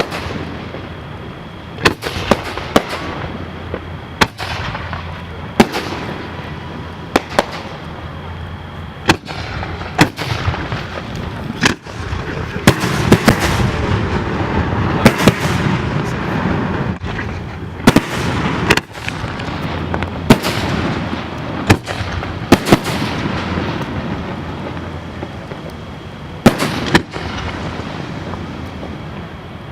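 Fireworks display: a string of sharp shell-burst bangs, one every second or two, with a thicker run of crackling in the middle.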